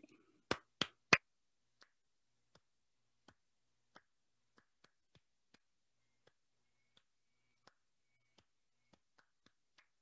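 Hand claps demonstrating a changed beat: three quick, loud claps about half a second in, then a long run of much fainter ticks, roughly two or three a second.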